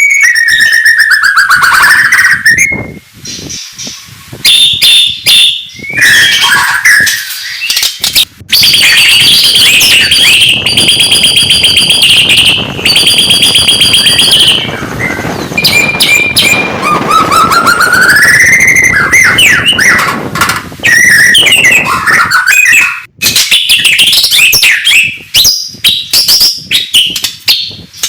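White-rumped shama (murai batu) singing a loud, varied song: slurred whistles gliding down and up, broken by short pauses, with fast rattling trills in the middle.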